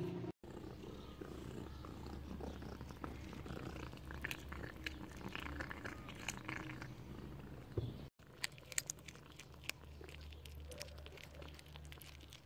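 A cat chewing and licking a piece of meat, with many small wet clicks and smacks, over a low, steady purr.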